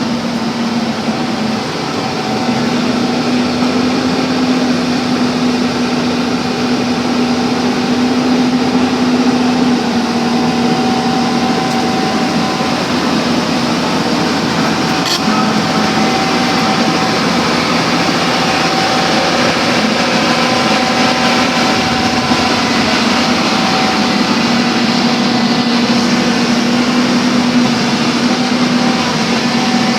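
Backhoe engine running steadily at a constant speed, with one brief click about halfway through.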